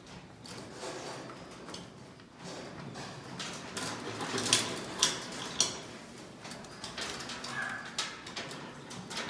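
Hose sprayer hissing as a bull is sprayed with antiparasitic solution, broken by sharp knocks and clanks, the loudest of them around the middle.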